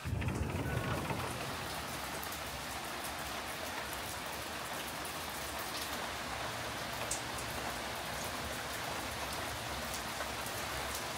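Steady rain falling: an even hiss with scattered ticks of drops.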